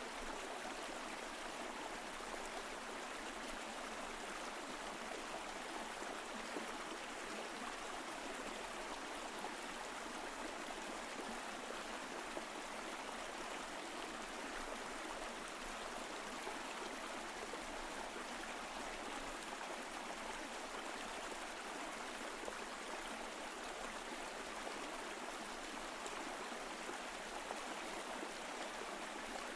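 Mountain stream flowing over rocks: a steady, even rush of running water that holds constant throughout.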